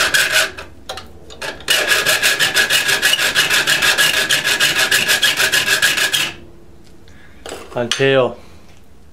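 Triangle file rasping back and forth in the gullets of saw teeth held in a vise: a few separate strokes at first, then a fast, even run of about nine strokes a second for around four and a half seconds, with a steady high tone under the strokes. A brief squeak near the end.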